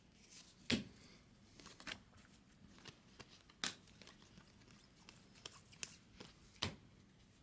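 Baseball trading cards being flipped through and pulled from a stack by hand: faint, scattered snaps and clicks of card edges, about half a dozen, the sharpest a little under a second in, around the middle and near the end.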